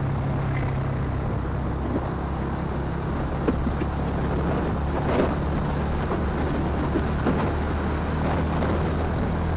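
Stock motorcycle engine running steadily while riding at cruising speed, with a low steady drone over wind and road noise.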